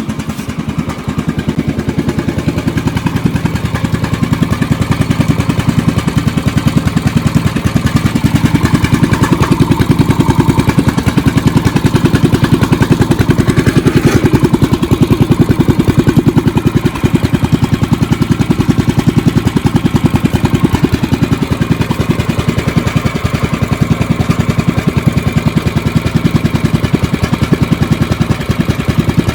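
Briggs & Stratton 9 hp Vanguard small engine running steadily with a fast, even firing beat.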